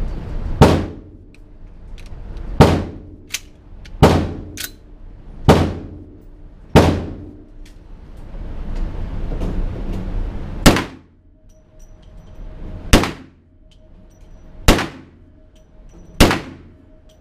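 Nine pistol shots fired one at a time, mostly a second and a half to two seconds apart with a longer pause midway, each ringing briefly in the indoor range. A couple of fainter sharp cracks fall between the early shots.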